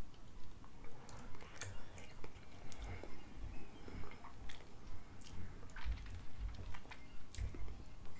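Quiet mouth noises: soft lip smacks and tongue clicks, about two to three a second, from someone whose lips are burning from an extremely hot chip.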